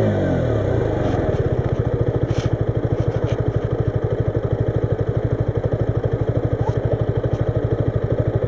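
KTM RC 125's single-cylinder four-stroke engine settling from a rev, then idling steadily with an even, fast beat.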